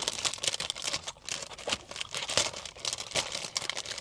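Food packaging being handled, crinkling and rustling in quick, irregular crackles.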